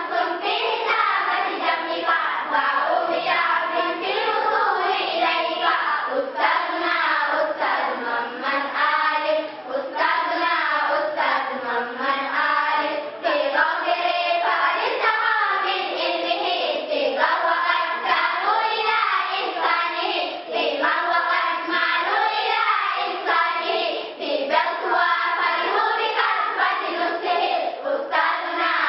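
A children's choir singing an Islamic song (nasheed) together over a steady percussive beat.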